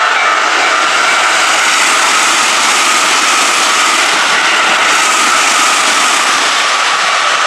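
Keikyu Main Line train passing over a level crossing, a loud steady rush of wheel and rail noise that drowns out the crossing's warning bell.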